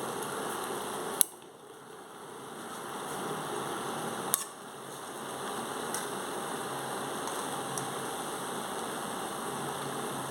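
Steady noise of a pot of kadha (spiced herbal water) boiling on the stove. Two sharp clicks come about a second in and about four seconds in, each followed by a brief drop in the noise.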